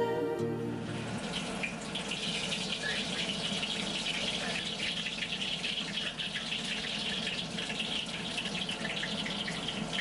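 Filled pastries shallow-frying in hot oil in a steel wok: a steady crackling sizzle that sets in about a second in.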